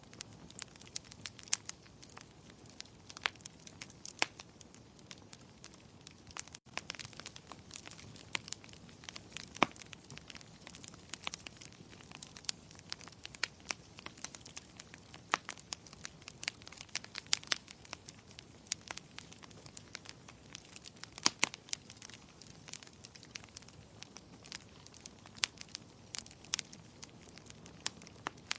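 Wood fire in a fireplace crackling, with irregular sharp pops and snaps, several a second, over a soft steady hiss of burning.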